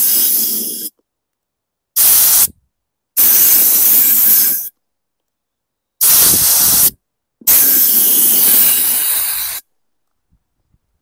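Compressed air blasting into a lawn mower's fuel tank to blow out old fuel and debris, in five loud hissing blasts of about half a second to two seconds each, starting and stopping abruptly, with the last ending near the end.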